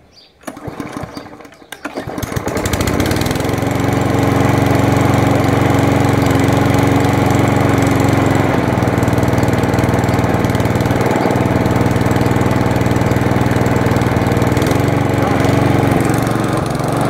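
Hyundai HYM43P push lawnmower's 139cc petrol engine being pull-started after priming: a second or so of rough cranking, then the engine catches about two seconds in and settles into a steady run.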